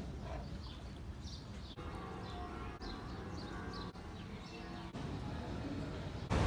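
Outdoor ambience with birds chirping. After about two seconds, several steady ringing tones sound together.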